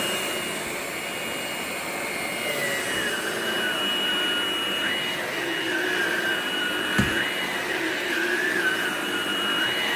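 Ryobi 18V ONE+ PCL720B cordless stick vacuum running on its bare-floor setting, with the brush roll off: a steady rushing hiss with a high whine. The whine's pitch drops a little about two and a half seconds in and wavers after that, and there is a single knock about seven seconds in.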